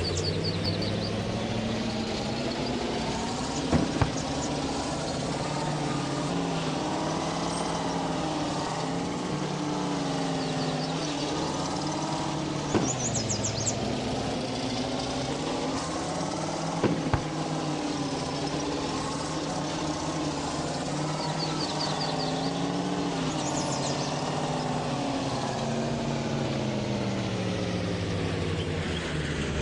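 GAZ truck engine running, its revs slowly rising and falling, with a few sharp knocks about 4, 13 and 17 seconds in. Birds chirp faintly now and then.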